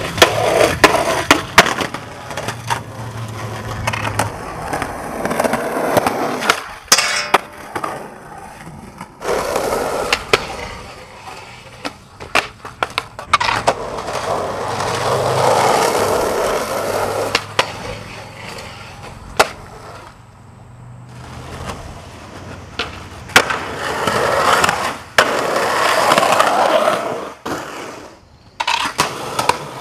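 Skateboards rolling over pavement and concrete, with sharp clacks of boards popping and landing. Near the start a board slides along a metal handrail.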